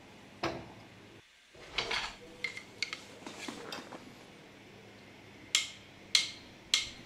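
Scattered light clicks and taps of kitchenware at a nonstick frying pan holding a little oil, as whole cloves are added, with two sharper ticks near the end.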